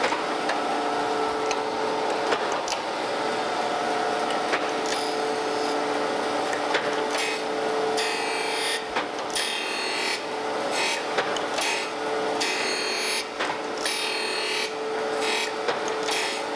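Landis surface grinder running with a steady hum from its wheel spindle while the table carries straight-edge castings back and forth under the wheel. From about five seconds in, a gritty hiss of the wheel cutting metal comes with each pass, roughly every second and a half. These are cleanup passes taking the second casting down to match the first.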